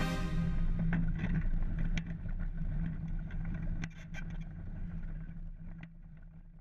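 An engine running steadily with a low hum, with a few sharp knocks and clicks, fading out toward the end.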